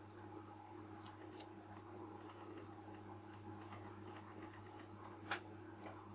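Faint small clicks and ticks of metal lens parts being handled and turned during reassembly of a Micro-Nikkor 55mm f/2.8, with one sharper click about five seconds in, over a steady low hum.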